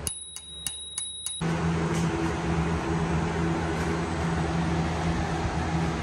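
Small dome bicycle bell on the handlebar rung with a quick run of about five strikes, ringing with a steady high tone. It cuts off about a second and a half in, and a steady low hum and room noise follow.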